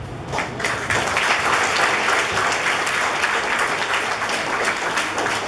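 Audience applauding, the clapping starting just after the opening and swelling to a steady, dense clatter about a second in.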